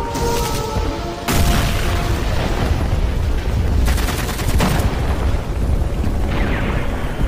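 Battle sound effects from a theatre score: a few held tones at the start give way, about a second in, to a dense low rumble of booms and crackling shots, with a sharp blast about four seconds in.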